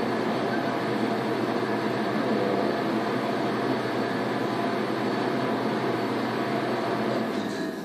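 A steady machine hum with hiss, falling away suddenly at the very end.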